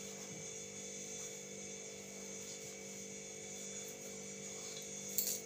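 A steady electrical hum with a buzz in it, even throughout, with one short click near the end.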